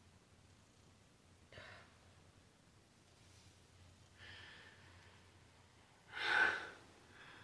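A woman breathing unsteadily while close to tears: a short breath about a second and a half in, a longer shaky breath around four seconds, and a heavy sigh, the loudest sound, near the end.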